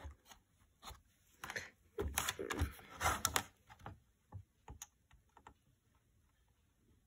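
Irregular light clicks and taps of the Operation game's metal tweezers and the small plastic piece knocking against the plastic board while a piece is fished out of its slot, busiest in the middle. No buzzer sounds, so the tweezers do not touch the edges.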